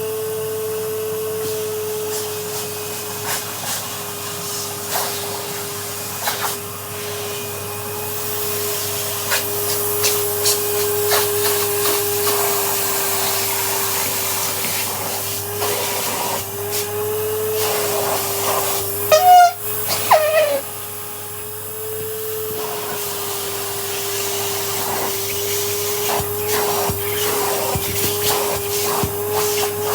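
Vacuum cleaner running steadily while its nozzle is worked over an upholstered armchair, with many small clicks and scrapes from the tool and the debris it picks up. About two-thirds of the way through there is a brief, louder squeal that slides in pitch.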